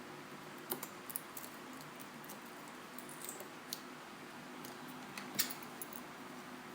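Scattered light clicks and ticks of small repair tools and tiny screws against an iPhone 4S's metal parts during disassembly, the sharpest about five and a half seconds in, over a steady low hum.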